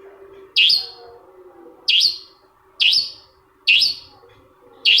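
Long-tailed shrike giving short, harsh calls, five in a row at about one a second, each a sharp downward-sweeping note.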